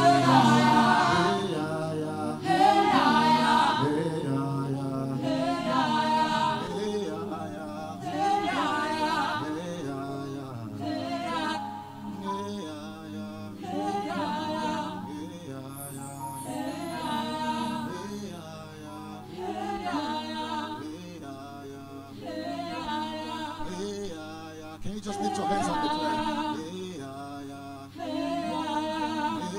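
Worship singing with little or no accompaniment, led by a man at a microphone in slow, chant-like phrases that swell and fade every few seconds.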